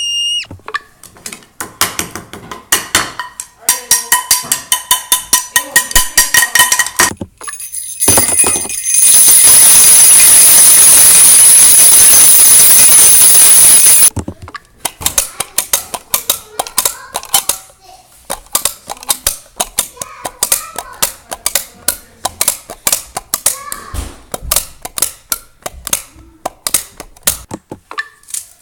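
A run of harsh noises: fast sharp clicking with a few steady tones, then a very loud steady hiss with a shrill high tone for about six seconds, cutting off abruptly, then rapid irregular clicking again.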